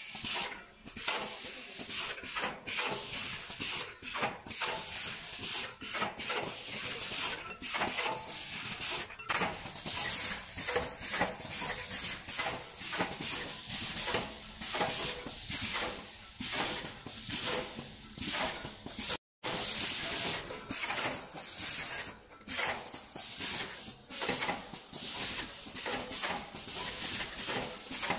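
Automatic kraft paper boat-tray forming machine running: a fast, busy clatter of its forming mechanism, with a steady high hiss. The sound cuts out for a moment about two-thirds of the way in.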